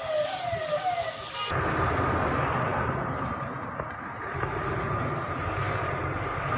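A siren sounding a rapidly repeating falling whoop, about two a second, stops abruptly about a second and a half in. A steady rush of vehicle noise follows as a car drives past close by.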